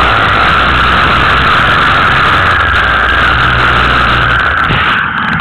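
Engine of a tube-framed dirt-track racing car running hard, heard loud and close from onboard, with a steady drone that eases slightly near the end.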